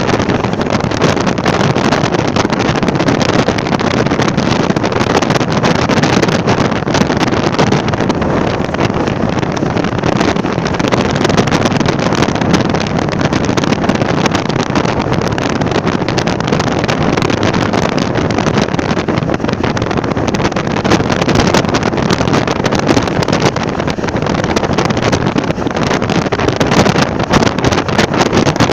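Wind on the toll road: a loud, steady rush of wind noise that never lets up.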